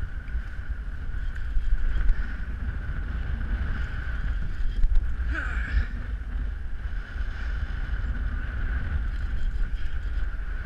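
Strong wind buffeting the microphone aboard a small fishing boat on choppy water, a heavy uneven rumble over a steady hum. A brief voice-like sound comes about five and a half seconds in.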